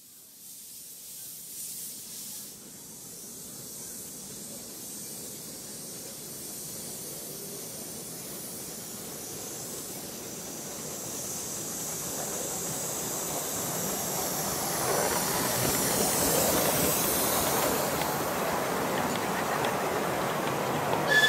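Miniature steam locomotive, a 10¼-inch-gauge SR 'Merchant Navy' 4-6-2, approaching and passing with its train of passenger carriages: steam hiss and running noise growing steadily louder as it nears.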